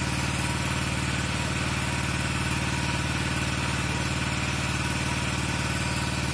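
A small engine running steadily at a constant speed, with a fast, even pulse.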